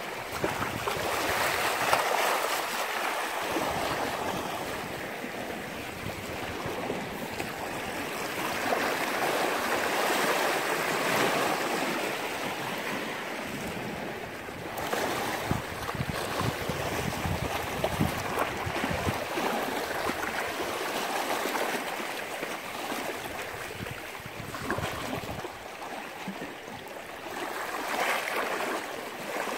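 Sea water washing and lapping at the shore in small waves, swelling and fading every few seconds.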